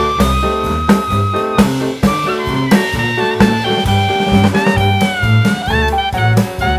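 Jazzy background music with a steady beat, a walking bass and a saxophone-like melody line.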